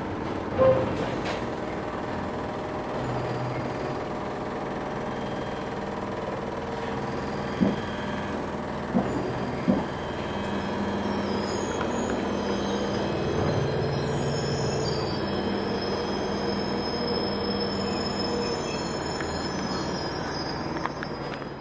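Northern line 1995 Stock train running, heard from inside the carriage: a steady rumble of wheels on rail with a few sharp clunks. Thin high whines join in about halfway through.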